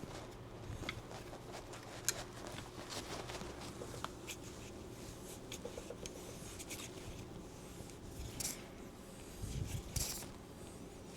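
Faint small metallic clicks and scrapes of a sight pusher being cranked, pressing a rear sight across a pistol slide's dovetail, over a faint steady hum. A few louder scraping strokes come near the end.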